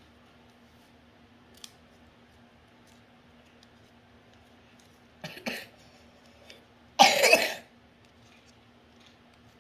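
Small scissors snipping folded colored paper, with a couple of short snips about five seconds in. About seven seconds in comes a short cough, the loudest sound.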